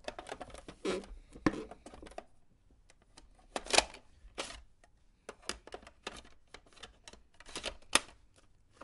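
Scattered clicks, taps and knocks of plastic parts being handled: fingers working the removable shelf boards inside a Tomica Buzz Lightyear spaceship storage case. The sharpest knocks come at about one and a half, four and eight seconds in.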